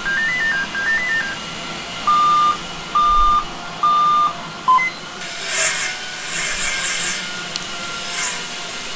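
Electronic beeps from a Dell laptop running its pre-boot diagnostics: a quick run of short beeps stepping up and down in pitch, then three long, even beeps about a second apart and one short one. From about five seconds in, a scratchy rubbing noise comes and goes.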